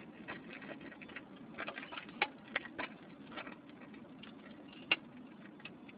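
Scattered raindrops of a thunderstorm tapping at irregular intervals, with a dozen or so separate taps and the loudest about two seconds in and near five seconds, over a steady low hum.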